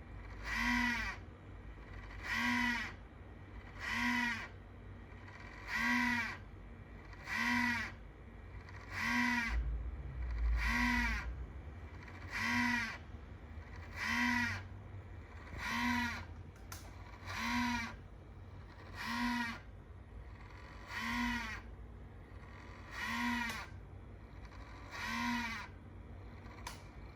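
A short pitched noise with a bending tone, about half a second long, repeating about every one and a half to two seconds over a low hum; the owner suspects it is an abnormal noise coming from his ASRock Taichi motherboard.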